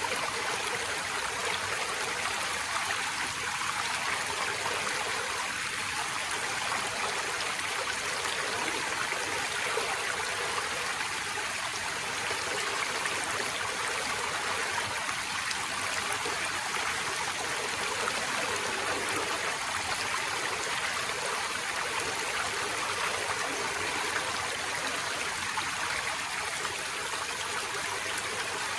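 Forest stream running steadily, a continuous rush of water with light trickling and gurgling.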